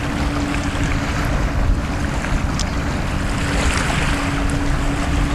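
Wind buffeting the microphone over surf washing on the shore, a steady rough noise heaviest in the low end. A faint steady hum comes and goes underneath.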